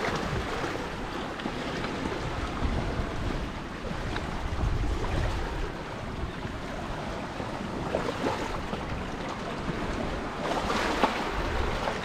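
Black Sea surf washing onto the beach, with wind buffeting the microphone. A couple of louder waves come in, one about two-thirds of the way through and one near the end.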